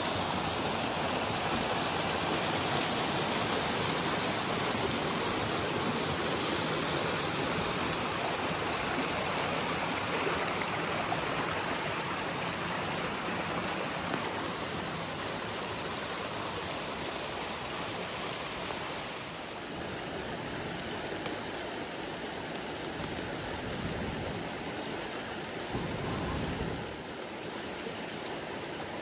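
A small rocky mountain stream rushing and splashing over a little cascade, a steady flow that drops slightly in level about two-thirds of the way through. A few faint sharp clicks sound over the water near the end.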